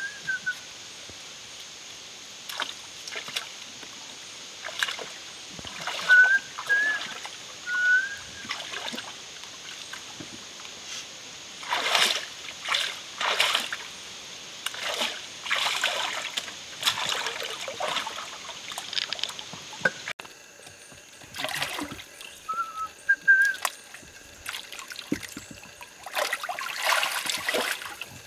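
Feet splashing and sloshing through a shallow, rocky stream in a series of irregular splashes, most of them in the second half. A bird chirps briefly a few times over a steady high background hiss.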